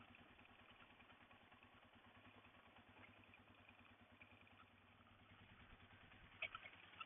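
Near silence, with a faint steady low hum of an idling engine throughout and one brief faint click about six and a half seconds in.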